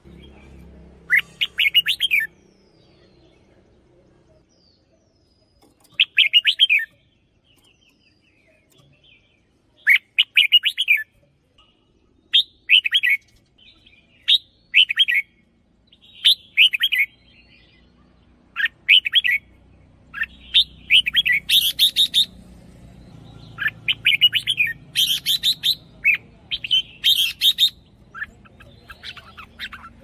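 Caged red-whiskered bulbul singing short, bright, warbled phrases, a few seconds apart at first, then coming faster and running almost together in the second half.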